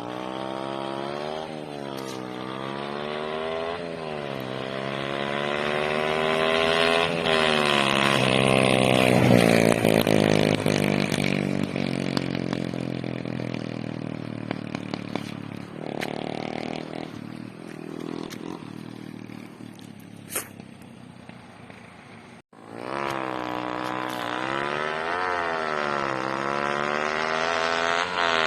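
Honda Dream 100 drag bike's single-cylinder four-stroke engine, bored out to 56 mm with performance camshafts, revving up and down in quick blips and then pulling hard in one long climb before the revs fall away. Near the end it cuts abruptly to another stretch of the same engine revving.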